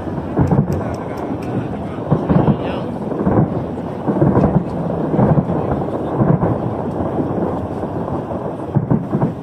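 Fireworks display: aerial shells exploding one after another, a dense run of low bursts about every half second to a second, with sharp crackles in the first second or so.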